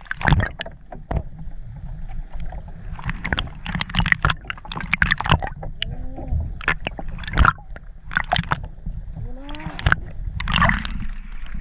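Underwater water noise picked up by a submerged camera: gurgling and bubbling, with many sharp knocks and clicks scattered throughout over a steady low rumble.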